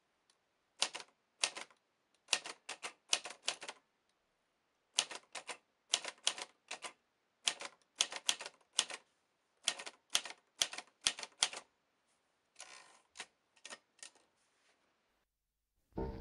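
Typewriter typing a short line onto paper: sharp single key strikes of the typebars against the platen, in uneven bursts of a few letters at a time, followed by a few softer clicks near the end.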